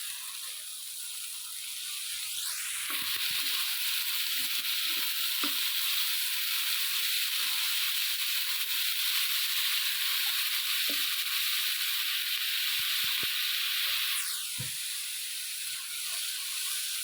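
Moong lentils frying in masala in a pan, a steady sizzle that grows louder about three seconds in and eases near the end, with a few light spoon knocks from stirring.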